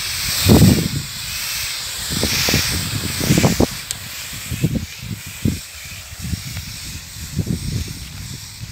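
Tractor-mounted crop sprayer's nozzles hissing as the spray jets out, the hiss weakening after about four seconds. Irregular low thumps run underneath.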